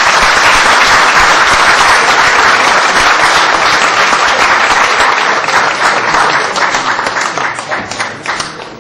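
A large audience applauding in a hall. The clapping is loud and dense at first and dies away over the last few seconds.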